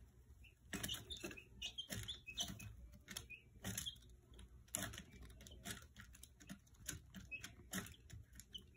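Two-week-old chicks pecking at a plastic feeder and scratching in pine shavings: a faint, irregular scatter of light taps and rustles, with short soft peeps between them.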